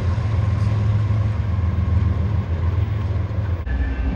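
GE freight diesel locomotives of a passing intermodal train, a steady low engine drone with track noise. About three and a half seconds in, it cuts abruptly to the lower rumble of another diesel-hauled train approaching.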